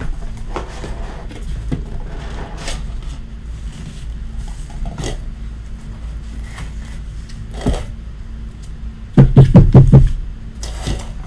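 Hands handling a cardboard trading-card box and its cards, with soft rustles, scrapes and clicks. Near the end comes a quick run of about five loud taps as a stack of cards is knocked on the table.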